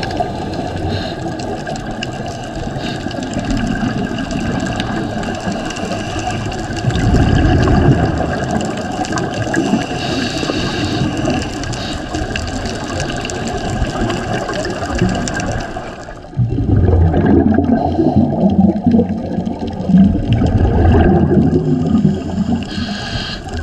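Scuba diver breathing through a regulator underwater: hissing inhales and bubbling exhales with a low rumble, loudest about seven seconds in and again in a long stretch from about sixteen seconds on.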